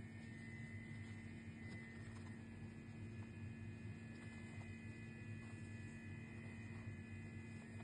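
Faint steady electrical-sounding hum with a thin high tone above it: room tone.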